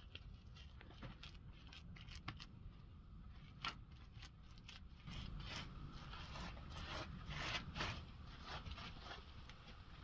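Irregular short scrapes and clicks, quiet and scattered, growing busier in the second half.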